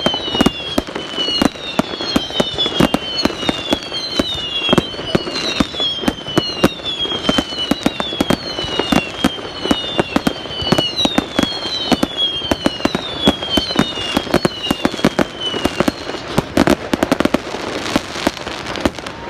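Fireworks going off: a rapid string of sharp bangs and crackles. Over it runs a series of high whistles, each falling in pitch, about one a second, which stop a few seconds before the end.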